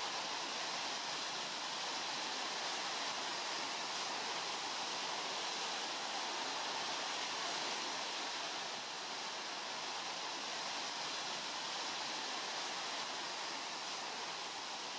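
Steady, even rushing of sea water, with no separate breaking waves standing out.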